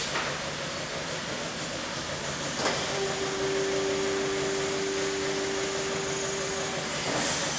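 Fibre laser cutting machine's automatic pallet changer shuttling a cut sheet, over a steady hiss of machinery. There is a clack at the start and another just under three seconds in, then a steady two-note motor whine for about four seconds.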